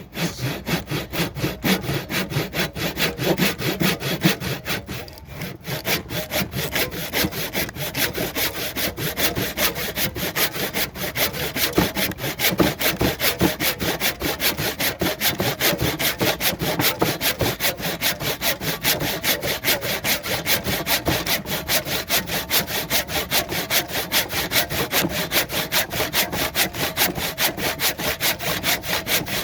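Rapid, even strokes of a hand tool cutting into a cedar block, about four a second, with a brief pause about five seconds in.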